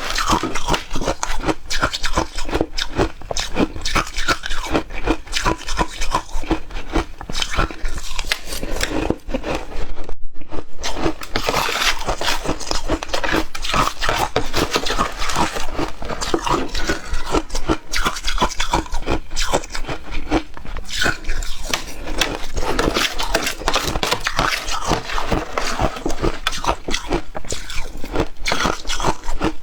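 Frozen ice being bitten and chewed, a rapid, continuous crunching with a brief pause about ten seconds in.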